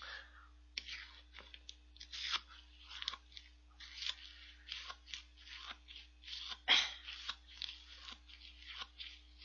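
A metal spoon scraping and crunching through strawberry shaved ice (bingsu) in a cup as it is stirred, in many short irregular strokes, the loudest about two-thirds of the way through. A faint steady hum lies underneath.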